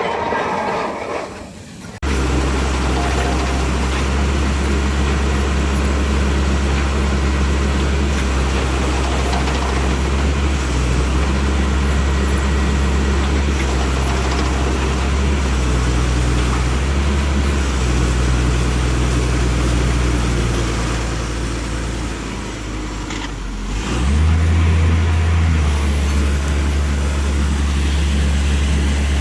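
Hydraulic anchor drilling rig running, a steady low engine drone that starts abruptly about two seconds in. About 24 seconds in the engine note steps up and gets louder.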